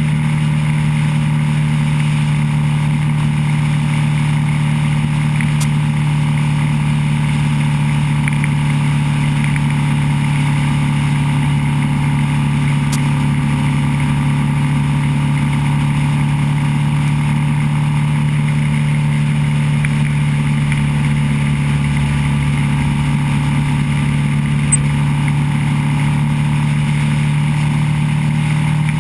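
Motorcycle engine running steadily at cruising speed, one constant low drone with no change in revs.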